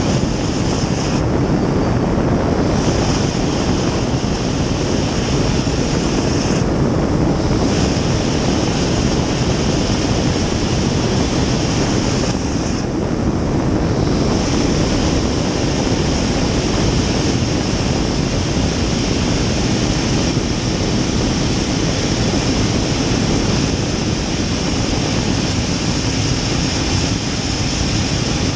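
A 2000 hp gas-turbine racing jet boat running at speed, heard from inside its cockpit: a steady loud roar of turbine and rushing water, with a steady high whine over it.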